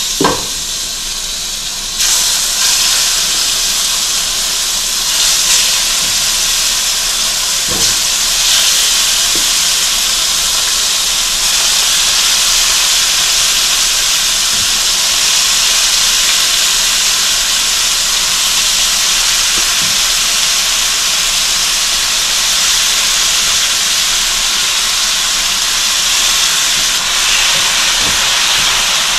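Seasoned chicken breast pieces sizzling in hot olive oil in a skillet, a steady hiss that steps up louder about two seconds in as more pieces go into the pan.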